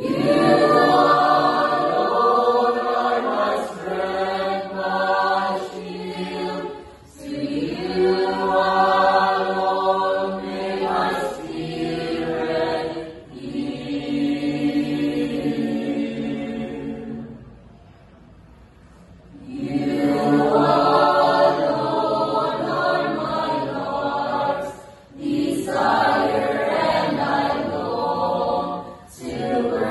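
Church choir singing in phrases separated by short breaks, with a longer pause of about two seconds a little past the middle.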